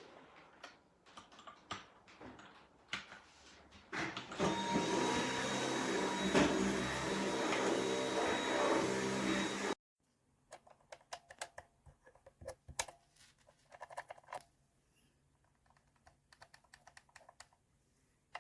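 Typing on a MageGee 75% mechanical keyboard with linear red switches: a scatter of key clicks. From about four seconds in, a loud steady machine-like whirring noise takes over for roughly five seconds and cuts off abruptly, after which the typing clicks continue more quietly.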